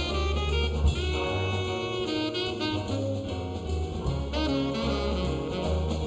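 Big band playing a swing tune: saxophones and brass in harmony over walking bass and drum kit.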